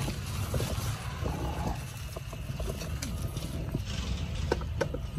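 Weeds and grass rustling as a hand pushes through them, with a few sharp clicks of stems and leaves near the end, over a steady low wind rumble on the microphone.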